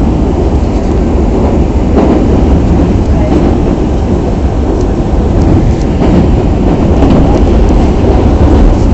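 Osaka Municipal Subway 21 series train running between stations, heard from inside the car: a steady rumble of wheels and running gear that grows a little louder near the end.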